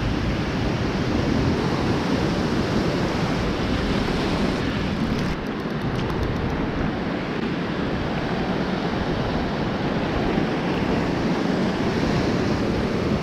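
Ocean surf washing and foaming over a rock platform, a steady rushing noise, with wind buffeting the microphone.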